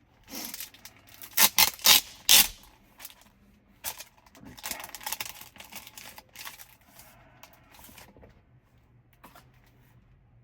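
Screen protector kit's packaging being opened and handled: several sharp rips or crackles of packaging in the first two and a half seconds, then a rustle and a few light taps.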